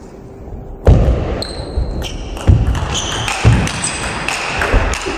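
Table tennis rally on an indoor hall floor, starting about a second in: sharp strikes of the celluloid ball off bats and table, with players' shoes thudding and squeaking as they move.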